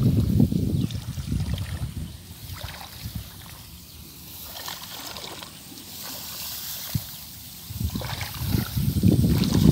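Footsteps wading and sloshing through a flooded rice paddy, with the rice stalks swishing against legs. The sloshing is loudest at the start and again near the end, with a single sharp click a couple of seconds before the end.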